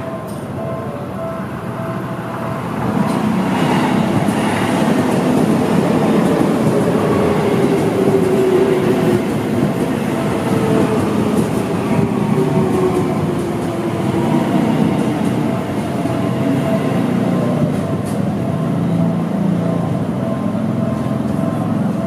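Electric commuter train running through a level crossing, a loud rumble and rattle of wheels on rail that swells about three seconds in, with a whine that falls in pitch as it goes by. The crossing's electronic warning bell rings over it in a steady repeating tone.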